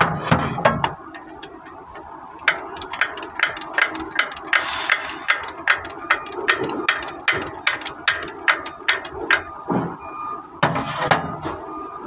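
Hand ratchet wrench clicking in quick even strokes, about three to four clicks a second, as a bolt on the crane's boom base pin lock cylinder is worked loose. Louder metallic clatters of tool handling at the start and again near the end.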